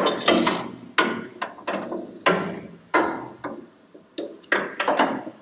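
A hammer striking metal: about a dozen sharp blows at an uneven pace, roughly two a second, each ringing briefly.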